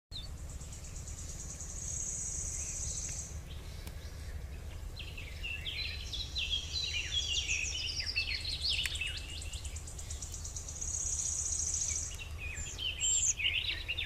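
Small birds singing in quick, sweeping chirps, mostly in the middle and again near the end, with an insect's high, rapidly pulsing trill in two stretches of a second or two, over a steady low background rumble.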